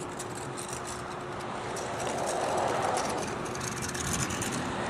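Kick scooter's small wheels rolling on asphalt: a rolling rumble with light rattling that swells as it passes, loudest about halfway through, then eases off.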